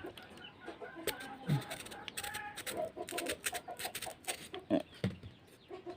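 Chickens clucking in short calls, mixed with scattered small clicks and scrapes.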